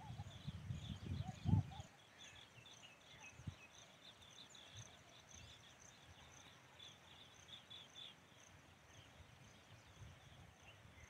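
Faint field ambience of insects trilling steadily with small birds chirping throughout, and a few low thumps in the first two seconds.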